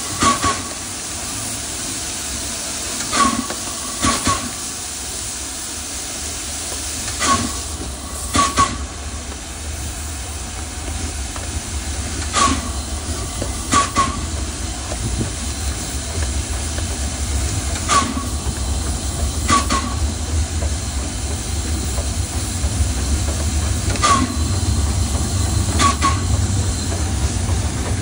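Standing steam locomotive hissing steadily as steam escapes around it. Sharp double clicks recur every four to six seconds, and a low rumble builds up through the second half.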